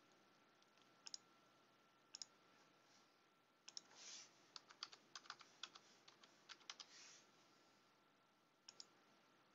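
Faint computer mouse clicks in the first couple of seconds, then about three seconds of keyboard typing as a number is entered, and a last pair of clicks near the end.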